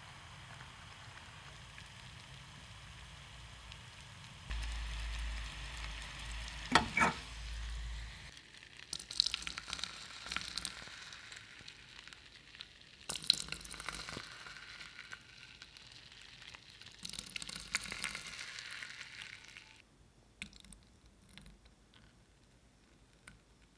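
Sugar-and-water caramel bubbling in a saucepan. Hot caramel is then poured into glass pudding cups, sizzling in about three bursts a few seconds apart. A brief sharp sound stands out near the middle, before the pouring.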